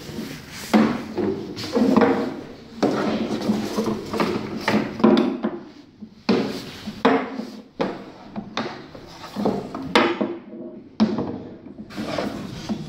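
Round-based cut-out figures being pushed across a wooden stage, scraping in a dozen or so short strokes.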